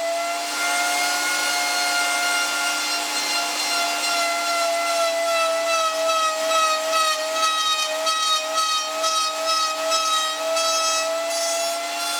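Router table's motor running with a steady whine while a round-over router bit cuts the end of a wooden rod. The pitch wobbles slightly in the middle of the cut.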